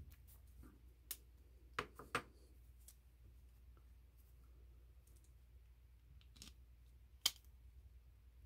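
A few sharp, small clicks and taps from hard plastic RC axle parts and small screws being handled and fitted by hand. The loudest click comes near the end, against faint room tone.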